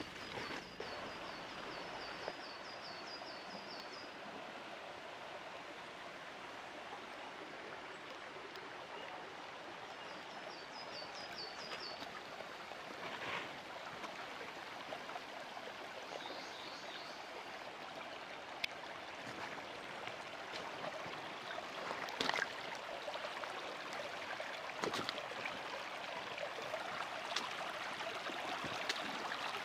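Shallow snowmelt stream running over stones and pebbles, a steady rush of water.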